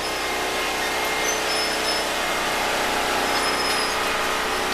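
Predator 6500-watt non-inverter generator engine running steadily under load, a constant mechanical drone with a hum of steady tones.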